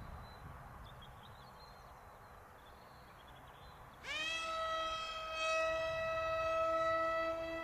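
Motor and propeller of a radio-controlled F-22 model plane spinning up sharply about four seconds in, then holding a steady high whine over a lower hum that eases slightly near the end. Before it, only faint background noise.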